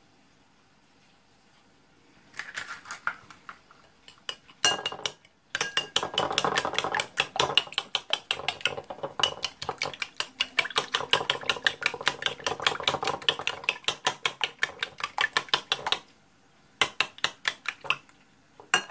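Raw eggs being beaten by hand in a ceramic bowl: a utensil clinks rapidly and evenly against the bowl's sides for about ten seconds, then pauses, and a few more clinks follow near the end.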